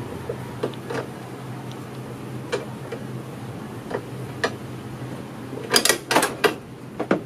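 Sharp metallic clicks and taps of a spark plug socket wrench and extension being worked in the spark plug well of a Honda Airblade 150 scooter. A few scattered clicks come first, then a quick cluster of louder ones about six seconds in and again near the end, over a steady low hum.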